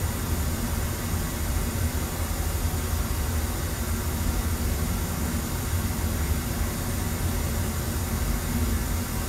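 Pink noise test signal playing steadily through a PA system into an auditorium for room EQ. It is a constant hiss with a strong bass rumble, while the 200 Hz band of the system's graphic EQ is cut.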